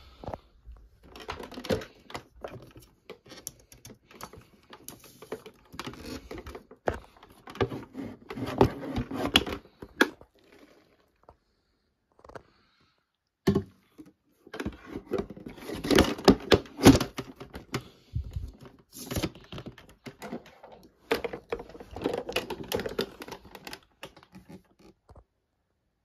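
Hard plastic casing of a 1990 Numatic Turbovac TVS2 upright vacuum cleaner being handled and its bag compartment opened and closed: irregular clicks, knocks and rattles in two long runs with a short pause between. The motor is not running.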